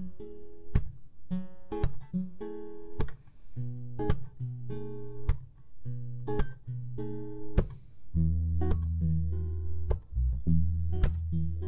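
Live band playing an instrumental passage: acoustic guitar strummed and picked over held electric bass notes, with drum hits marking a steady beat.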